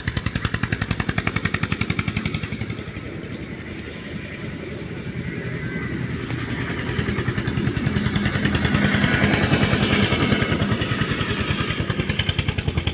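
An engine running steadily with a rapid, even chugging beat, growing louder in the second half.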